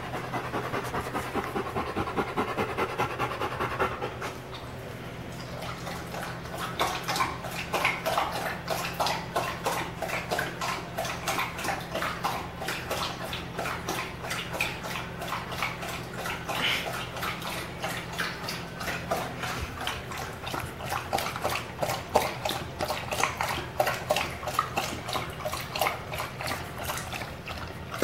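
A 90-pound chocolate Labrador panting hard after a workout, then, from about five seconds in, lapping water from a plastic bowl with quick, wet, irregular laps.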